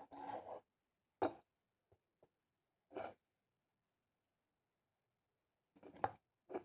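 About five short breaths close to the microphone, spaced out, the sharpest about a second in.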